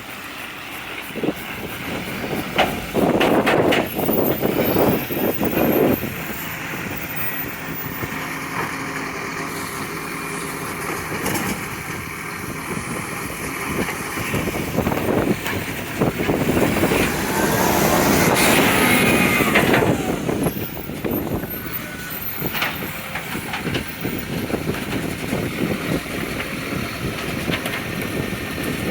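Recycling garbage truck at work with a leaking exhaust: the engine runs under the truck's noise and revs up loudly for a few seconds twice, a few seconds in and again about two-thirds through, with a rising and falling whine during the second surge.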